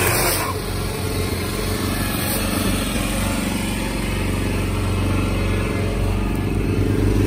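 Small gas engine of a Salsco round-bale wrapper running steadily, with a brief burst of noise at the very start.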